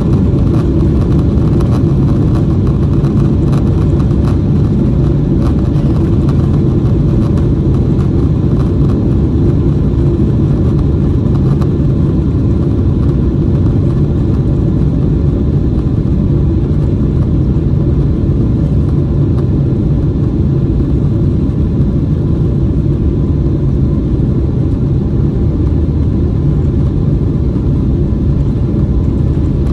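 Cabin noise of a Boeing 777-300ER airliner: its GE90 engines and the airflow make a loud, steady low rumble. Light rattling clicks sound over the first dozen seconds, then die away.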